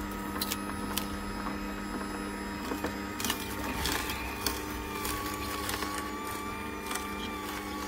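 Aicok horizontal slow juicer running with a steady motor hum as celery stalks are pushed down the chute into the auger, with a few sharp snaps here and there.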